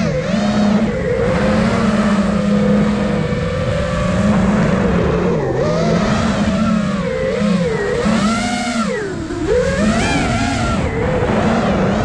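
Brushless motors and propellers of an iFlight Nazgul Evoque 5-inch FPV quadcopter in flight: a whine whose pitch rises and falls with the throttle, dipping sharply about nine seconds in before climbing again.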